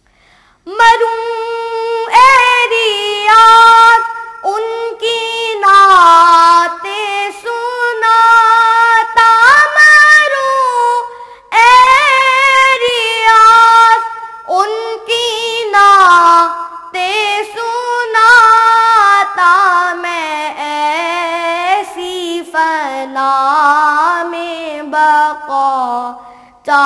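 A young boy's high voice singing a Naat, an Urdu devotional poem, with no accompaniment. He sings long melodic phrases with held, bending notes, broken by short pauses for breath.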